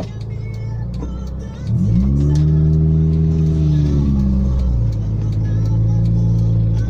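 Honda B16A 1.6-litre DOHC VTEC four-cylinder through its stock exhaust, idling, then revved up about two seconds in, held at a steady higher speed for about three seconds, and let fall back to idle.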